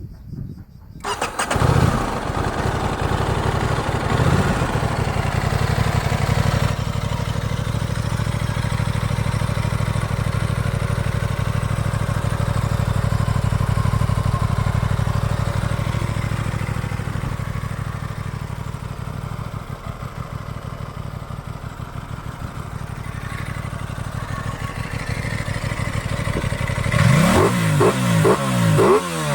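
Aprilia RS 660's parallel-twin engine starting about a second in and giving a couple of short revs. It then settles into a steady idle, and near the end a quick series of throttle blips sends the revs up and down.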